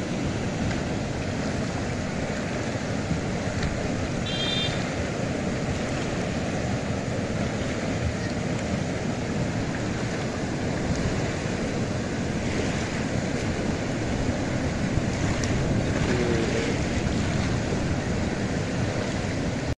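Steady rush of fast-flowing river water pouring out through a concrete sluice outlet, with wind buffeting the microphone.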